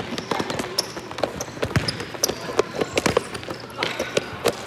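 Futsal ball touches and players' footsteps on a hard tiled indoor court: a quick, irregular run of sharp knocks and taps that echo in the hall.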